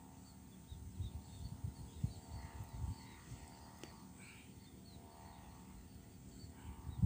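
Quiet outdoor ambience: small bird chirps scattered through, over low irregular rumbles on the microphone and a faint steady hum.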